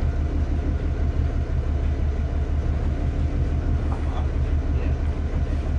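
Sportfishing boat's engine idling: a steady low rumble with a fast, even flutter.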